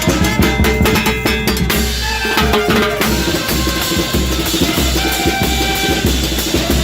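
Ecuadorian town band (banda de pueblo) playing, its timbales and drums keeping a dense, steady beat with deep regular drum pulses underneath and a few held instrument notes above.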